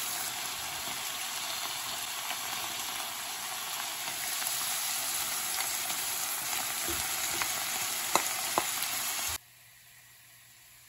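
Liver pieces with sliced tomato and onion frying in a nonstick wok, sizzling steadily, with a few sharp clicks shortly before the end. The sizzle cuts off suddenly near the end, leaving faint room tone.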